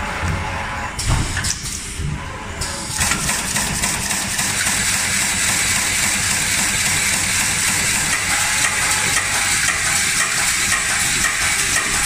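Automatic zipper slider making machine running: a few sharp clicks and knocks of its mechanism in the first seconds, then a steady, dense machine noise from about three seconds in.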